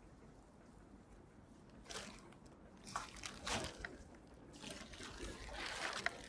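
Faint water trickling and dripping, with sloshing and scraping as a shell-crusted bottle just pulled from the river is handled. It starts about two seconds in and comes in irregular bursts.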